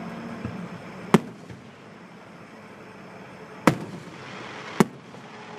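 Aerial fireworks going off: three sharp bangs, about a second in, a little past three and a half seconds, and near five seconds, the first the loudest.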